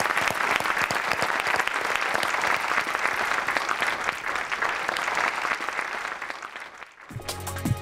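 An audience applauding with many hands clapping, fading out about six seconds in. After a brief gap, music starts near the end.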